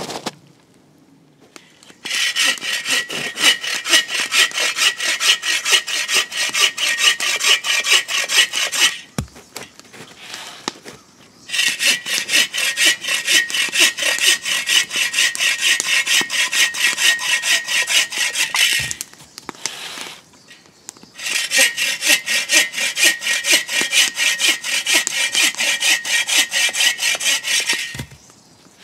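A 21-inch Sven saw, a folding bow saw, cutting through wood for a fire in three long bouts of quick, even back-and-forth strokes, with a brief pause between bouts. Each bout ends in a soft low thump.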